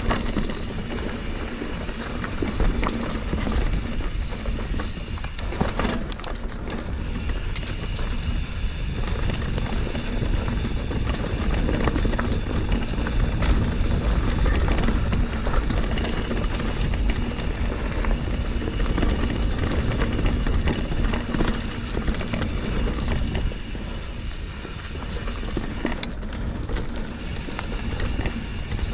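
Mountain bike riding over a rough, rocky trail: a constant rumble of tyres and frame rattle with many small clicks and knocks, and wind noise on the microphone.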